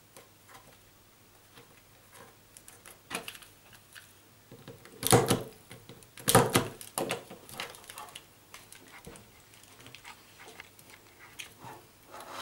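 IDC punch-down tool pressing solid-core network cable wires into the terminal block of a plastic CAT5E faceplate socket. It gives two sharp clicks a little over a second apart, about halfway through, as each wire is seated and cut, with lighter ticks and plastic handling sounds around them.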